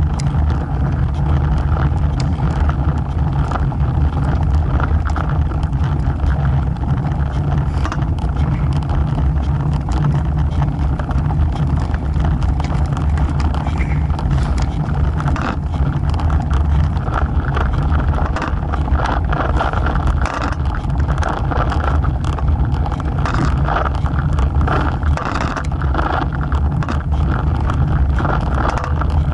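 Road bike riding over rough mountain asphalt, heard from a camera mounted low by the front wheel: steady wind rumble on the microphone and tyre noise, with frequent small clicks and knocks from bumps and road debris.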